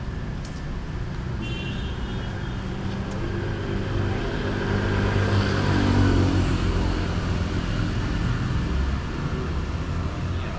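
City road traffic, with a motor vehicle's engine passing close by. It swells to its loudest about six seconds in and drops in pitch as it goes past.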